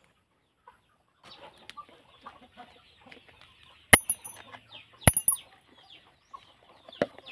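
Chickens clucking in the background, with two sharp clinks about four and five seconds in as screws taken out of the water pump's cover are dropped into a ceramic mug.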